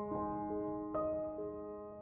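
Slow, soft solo piano background music, single notes struck a few times a second and left to ring.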